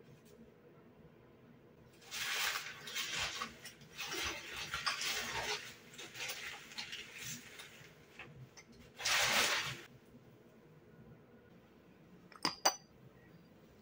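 Dishes and cutlery being handled: scraping and clattering in bursts, then two sharp ringing clinks near the end.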